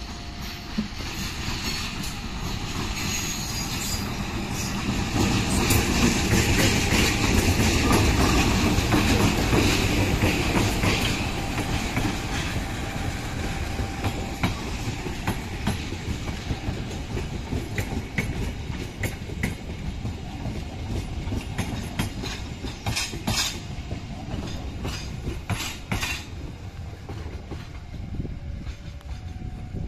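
Two CC 201 diesel-electric locomotives running past on a shunting move, loudest a few seconds in. Passenger coaches then roll by with clickety-clack wheel noise over the rail joints, and a run of sharper clicks comes near the end.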